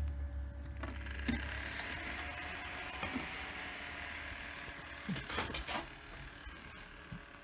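Hands handling a breadboard circuit and its USB connector: scattered small clicks and knocks over a steady hiss, with a low hum that fades out about a second in.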